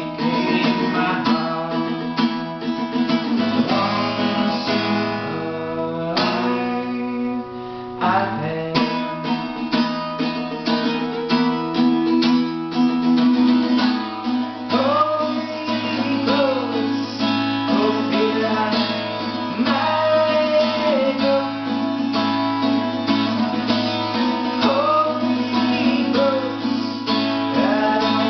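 Acoustic guitar played solo in an instrumental passage of plucked chords and single picked notes.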